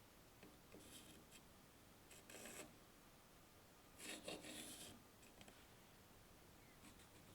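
Faint hand-work scraping: three short rasping or rubbing strokes, the last and loudest about four seconds in.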